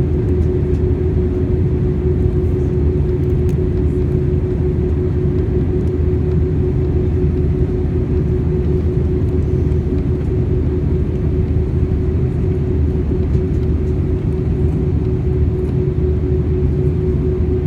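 Airbus A319 cabin noise from a window seat: a steady, loud drone of the IAE V2500 engines and airflow, a deep rumble with one constant hum above it.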